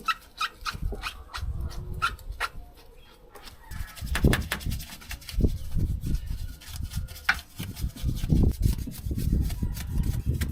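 A brush scrubbing over the excavator's metal in irregular strokes, working off dirt and loose rust.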